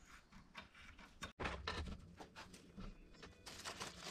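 Faint, irregular light metal clicks of hand-tool work on a small threaded steel bar held in a bench vise. About a third of the way in the sound cuts to a louder stretch of clicks and handling, with a plastic bag crinkling near the end.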